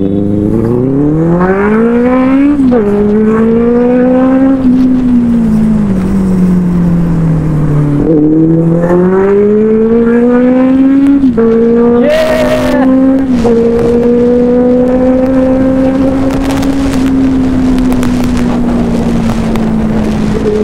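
Inline-four motorcycle engine pulling through the gears. The pitch climbs and drops sharply at each upshift. It winds down for a few seconds as the throttle eases, pulls up again through two more shifts, then holds a steady cruise. About twelve seconds in there is a brief rushing noise.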